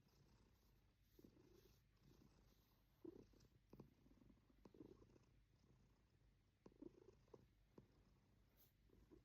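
Faint snoring from a sleeping pet, with soft low snores every second or two.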